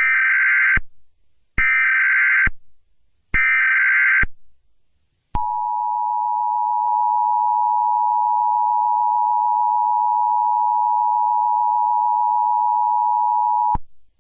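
Emergency Alert System tones. Three short bursts of SAME digital header data come first, then the two-tone attention signal, a steady dual tone held for about eight seconds that ends abruptly. Together they mark the start of a new alert.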